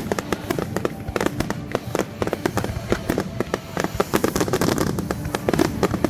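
Fireworks display: a rapid, continuous string of sharp bangs and crackles, several reports a second, growing busier about four seconds in.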